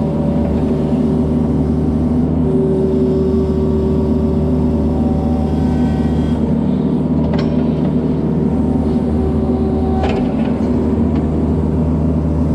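Diesel engine of a mini excavator running steadily while digging a drain-field trench, with a couple of short knocks from the work about seven and ten seconds in.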